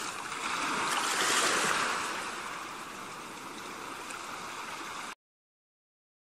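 Sea waves washing on the shore: a rushing surge that swells about a second in and slowly fades, then cuts off sharply about five seconds in.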